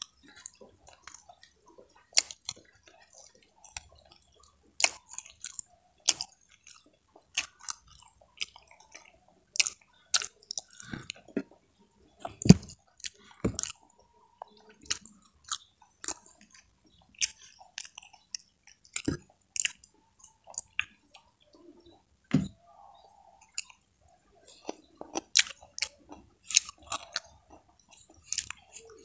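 Chewing and mouth sounds of a person eating by hand: irregular wet smacks and clicks, with a few dull thumps, the loudest about halfway through.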